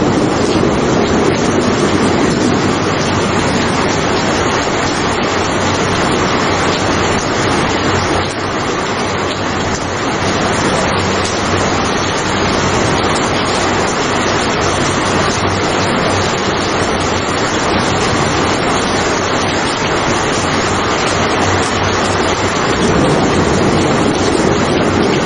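Loud, steady rain falling: a dense, even hiss of rainfall without distinct drops or claps.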